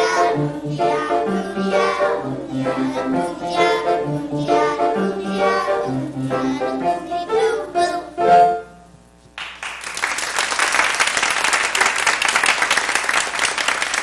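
Young children singing a song with instrumental accompaniment; the song ends about eight seconds in, and after a short pause the audience breaks into steady applause.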